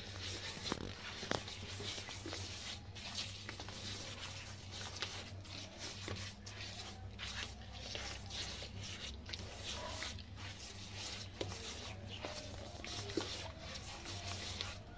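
A bare hand rubbing and squishing a soft creamed butter, sugar and oil paste against the sides of a glazed bowl, with faint repeated smearing strokes.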